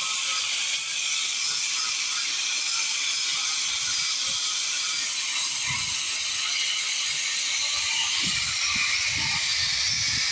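Angle grinder smoothing a wood carving: a steady hiss, with low thumps in the last few seconds.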